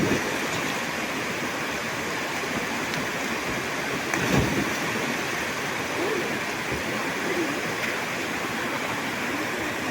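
Waterfall with a steady rush of falling water. A brief low thump about four seconds in.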